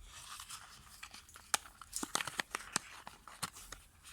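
A small product box being opened by hand: packaging rustling, with many short sharp clicks and scrapes scattered through.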